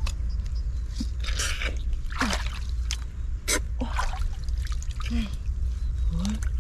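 Muddy water splashing and sloshing in irregular bursts as hands work in a flooded hole, with a few short grunts or gasps and a steady low rumble underneath.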